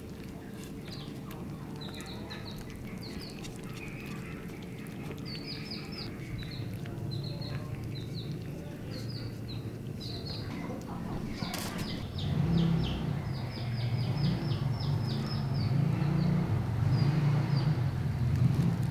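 Small birds chirping in short high notes, over and over. From about two-thirds of the way in, a louder low rumbling noise joins them.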